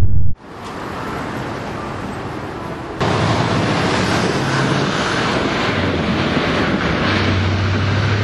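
Outdoor street noise: a steady rushing of wind on the microphone mixed with traffic. It steps louder about three seconds in, and a low engine-like hum joins it in the second half. A louder sound cuts off abruptly just at the start.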